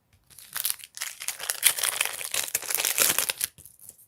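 Plastic trading-card pack wrapper being torn open and crinkled by hand, a dense crackling for about three seconds that dies away near the end.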